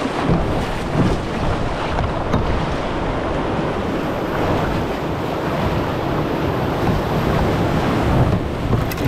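Whitewater rapids rushing loudly and steadily around an open canoe as it runs through standing waves.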